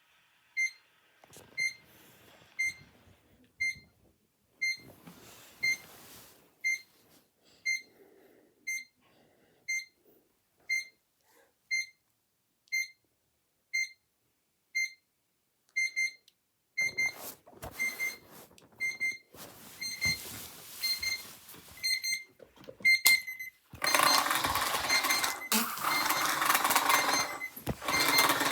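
Electronic alarm beeping: a short high beep repeating about once a second. Near the end a much louder, dense sound takes over.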